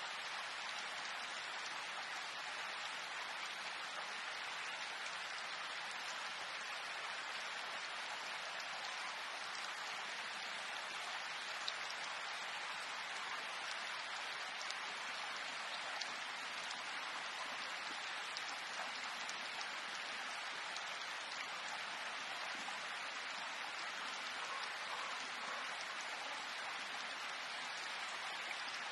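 Steady rain falling: an even hiss with a few single drops standing out, one about twelve seconds in and one about sixteen seconds in.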